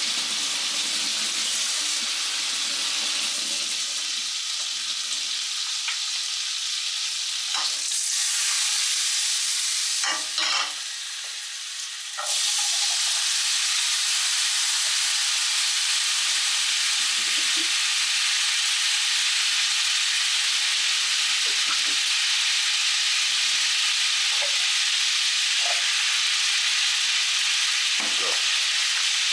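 Drained canned beans frying in butter in a pan: a steady sizzle, with a few knocks of a utensil against the pan. The sizzle drops away briefly about ten seconds in, then comes back at full strength.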